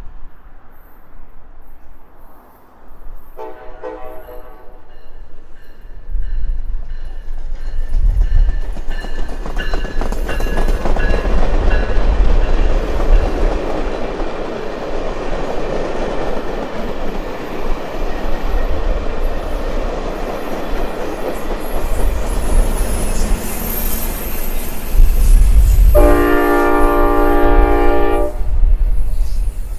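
Amtrak Piedmont passenger train going by: the locomotive and cars rumble and clatter over the track, building up about six seconds in. The horn sounds a short chord about three seconds in and a longer, louder one near the end.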